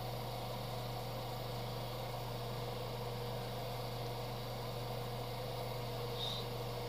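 Steady hum and hiss of motor-driven paint-booth equipment running, with a faint click about six seconds in.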